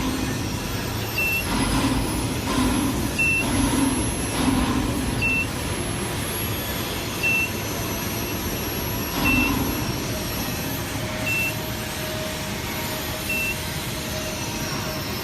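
Steady industrial machinery noise with a short high beep repeating about every two seconds, like a warning beeper. A few low knocks in the first half, and a steady hum joins about ten seconds in.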